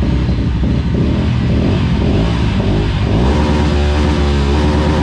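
Mahindra Mojo's single-cylinder engine running and being revved through its exhaust: a low rumble at first, then the revs climb about two and a half seconds in, hold high for about a second, and fall away near the end.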